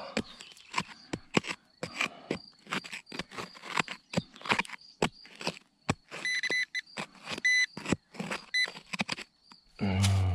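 Small hand pick chopping and scraping into stony soil in quick, irregular strikes. A metal-detector pinpointer probe gives high beeps between the strikes, clearest between about six and eight seconds in.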